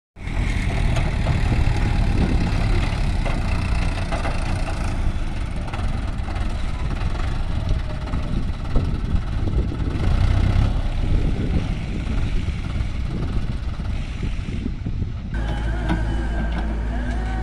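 Heavy diesel engines running at work: a farm tractor hitched to a trolley and a crawler excavator digging soil. About 15 seconds in the sound switches abruptly to a steadier, even engine drone.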